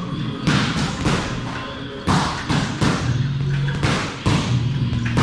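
Boxing gloves punching a double-end bag: about a dozen sharp thuds in quick, uneven combinations, often two in close succession, as the ball is hit and snaps back on its cords.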